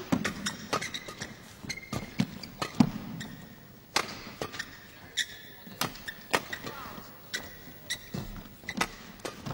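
Badminton rally: rackets striking the shuttlecock in sharp cracks about once or twice a second, with short squeaks of players' shoes on the court.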